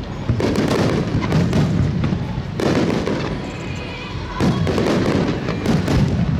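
Aerial fireworks shells bursting in a rapid, dense barrage, booms and crackles overlapping with a continuous low rumble, with heavier clusters about two and a half seconds in and again near the end.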